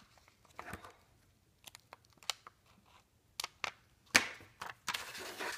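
Light clicks and crinkling of a plastic rhinestone border strip being handled and worked between the fingers, with one sharp click about four seconds in, followed by a stretch of rustling.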